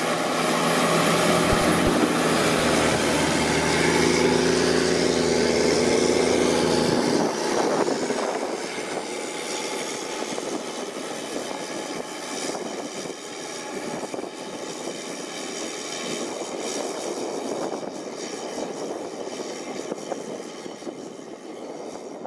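Challenger MT765B crawler tractor's CAT C9 ACERT turbocharged six-cylinder diesel running steadily under load as it pulls a four-furrow plough. It is loud and close for about seven seconds, then the sound changes abruptly to a quieter, more distant run of the same engine working on.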